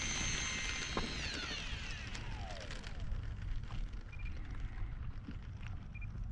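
Whine of the E-flite A-10's twin electric ducted fans as the RC jet runs down the runway, sliding down in pitch between about one and three seconds in and fading as it moves away. A steady low wind rumble sits underneath.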